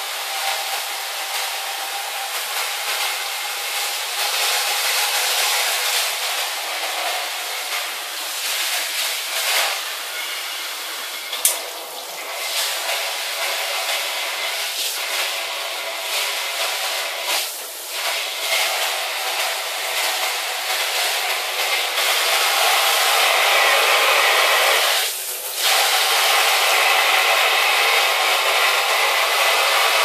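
Handheld shower head spraying water onto tile, a steady hiss of spray that grows louder about two-thirds of the way in. A single sharp click comes just over a third of the way in, and the spray sound briefly dips twice later on.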